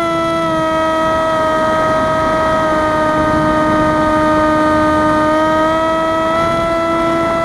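Electric brushless motor and 6-inch propeller of an FPV flying wing under power in flight: a steady whine that dips slightly in pitch just after the start and rises a little near the end, over a low rush of air noise.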